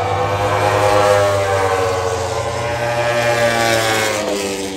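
Racing motorcycle engines running on the circuit, their pitch gliding slowly up and down over a steady low hum.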